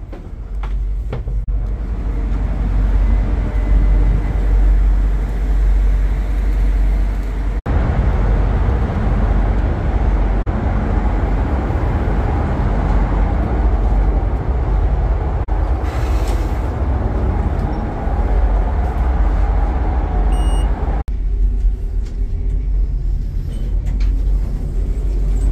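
Deep, steady rumble of a BC Ferries vessel's engines and machinery heard from inside the ship, a constant loud drone.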